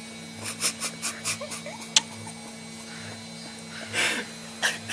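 A small child eating, with short wet mouth clicks, smacks and little squeaky sounds, then one sharp click about two seconds in and breathy bursts near the end, over a steady electrical hum.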